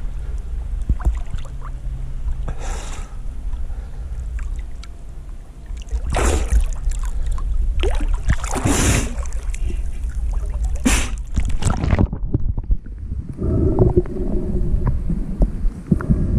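Lake water sloshing and splashing against a camera held at the waterline, with a constant low rumble and several short splashes, the loudest about six, nine and eleven seconds in. About twelve seconds in the camera goes under and the sound turns muffled, low and gurgling.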